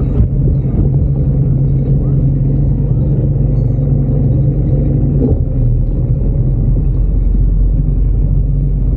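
Small outboard motor on an inflatable boat running steadily at low speed as the boat moves off; a low, even hum that hardly changes.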